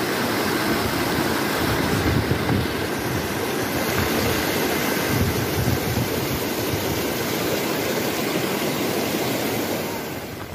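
Water rushing steadily over travertine rock ledges in small cascades. It eases a little near the end.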